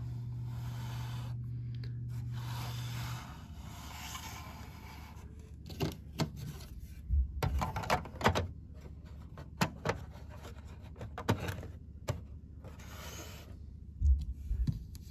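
Lego plastic bricks being handled: the roof plate of a Lego building is set back on, with scattered clicks, knocks and rubbing of plastic on plastic. A steady low hum is heard for the first three seconds.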